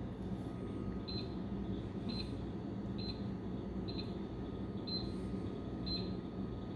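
Keypad of a Royal Vision RVV 500 vending machine beeping at each button press while scrolling through the price-programming menu: six short high beeps about a second apart, over a low steady hum.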